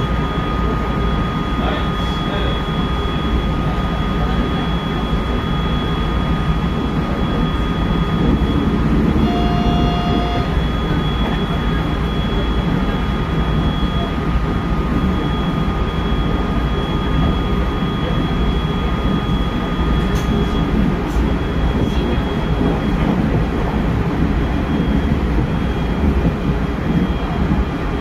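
Electric multiple-unit train running at speed, heard from just behind the driver's cab: a steady rumble of wheels on rail with a thin, steady high whine over it. A short tone sounds for about a second roughly a third of the way through.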